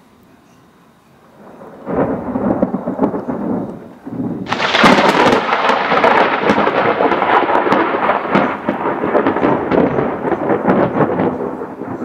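Thunder. A rumble starts about two seconds in, then a sudden, louder crack about four and a half seconds in breaks into a long crackling roll that fades near the end.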